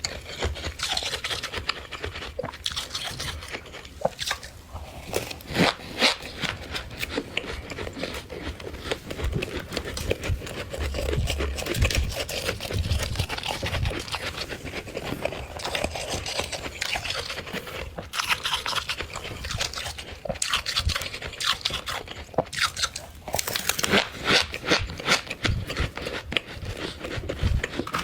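Close-up crunching and scraping of frost as it is scraped up and chewed: a dense, irregular run of sharp crackles with louder clusters now and then.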